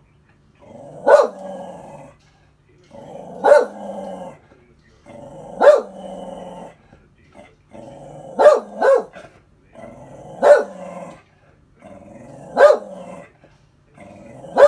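Dog growling and barking in a repeating pattern: a growl of about a second rising into a sharp bark, roughly every two seconds, with two quick barks together near the middle. It is wary, scared barking at an inflatable unicorn pool float.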